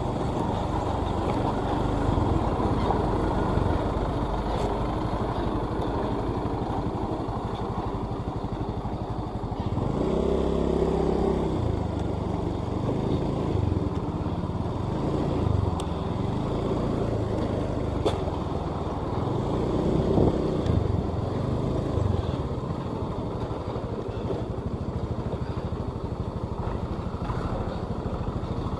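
Vehicle engine and road noise running steadily while travelling, with louder swells about ten seconds in and again about twenty seconds in.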